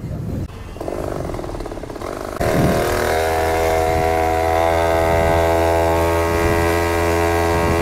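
Small two-stroke mini bike engine being ridden: a lighter rattling run at first, then about two and a half seconds in it jumps to a loud, steady, buzzing note at higher revs and holds there.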